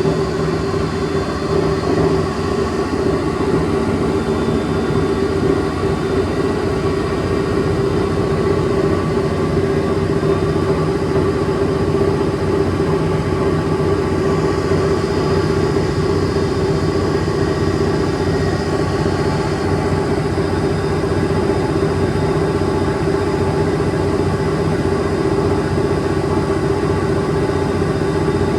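Extra-large coin-operated washing machine running, with a loud, steady motor hum and rumble.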